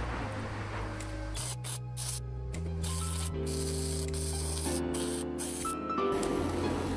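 Stick (arc) welding: an electric arc crackling and hissing as beads are run into holes in a worn drill-press part, breaking off briefly a few times. Background music with steady low notes plays underneath.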